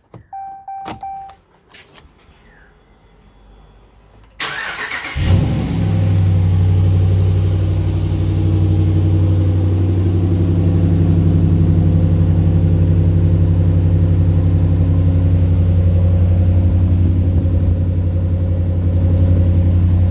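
Ram 1500 V8 pickup started through a freshly fitted Kuluin aftermarket muffler: a few clicks and a short beep, then the starter cranks about four seconds in and the engine catches and settles into a steady, deep idle that sounds like a V8.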